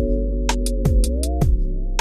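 Electronic background music with a steady beat: held synth chords that slide up in pitch, a deep kick drum and sharp hi-hat and snare hits.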